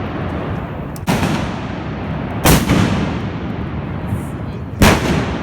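Trabucs (old-style blunderbusses loaded with blank powder charges) fired by trabucaires, one after another. There are three loud blasts: about a second in, at about two and a half seconds, and near the end. Each leaves a long echoing tail.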